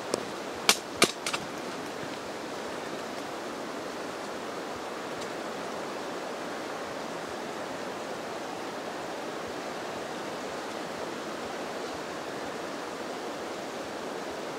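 Steady rushing of running water, with four short sharp clicks in the first second and a half.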